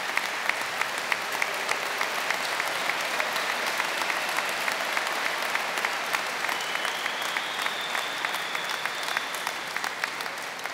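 Large crowd applauding steadily, easing off a little near the end.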